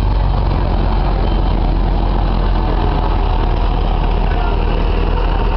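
Farm tractor's diesel engine running steadily at low speed, deep and even, as it tows a float trailer close past.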